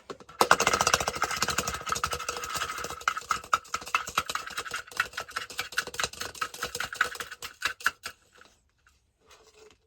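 Hard-boiled egg shaken inside a cup, rattling rapidly against the cup's sides to crack its shell. The rattle is loud at first, thins out after about three seconds and stops near the end.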